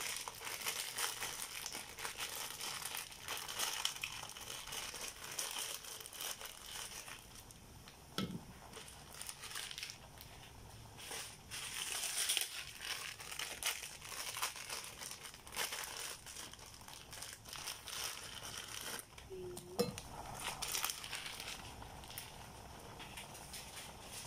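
Plastic wrappers of Indomie instant-noodle packets crinkling and rustling as they are handled and opened, in irregular fits, with a brief low thud about eight seconds in and a short squeak near twenty seconds.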